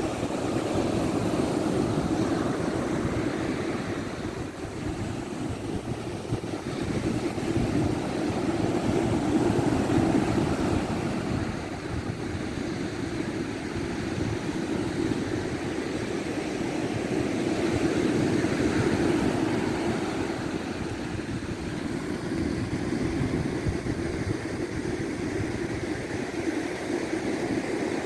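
Ocean surf breaking on a sandy beach: a continuous rushing that swells and eases every several seconds as waves come in, with wind rumbling on the microphone underneath.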